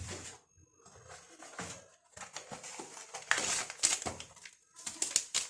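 Small clicks and taps of kitchen utensils being handled, with brief rustling hisses, irregular and busiest in the second half.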